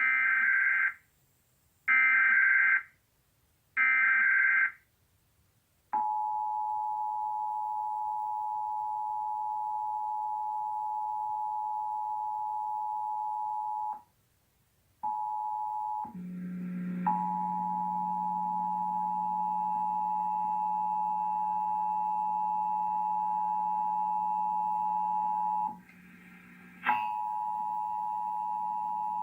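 Emergency Alert System test signals. First come three short squawking bursts of SAME digital header data. About six seconds in, the two-tone EAS attention signal (853 and 960 Hz together) starts as a steady dual tone. The tone breaks off briefly and resumes, now over a low hum, with another short data burst near the end.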